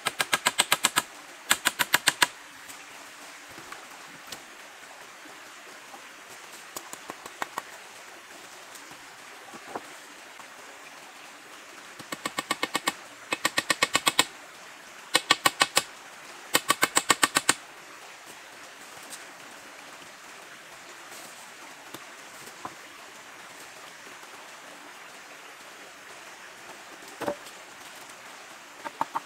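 Several bursts of a rapid, evenly spaced rattle, about ten sharp strikes a second, each burst lasting about a second. Two come at the start and a run of three comes about halfway through, with a few single clicks in between.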